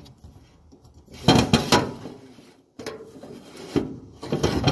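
Metal clinking and clattering with some scraping as tools and dryer parts are handled during a pulley repair, in two short clusters of knocks with rubbing between them.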